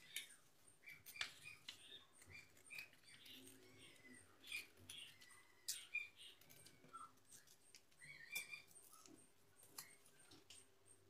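Faint, quiet handling of paper on a wooden board: soft rustles and light taps as a thin paper strip is pulled free and rolled into a tube. Faint bird chirps come through in the background.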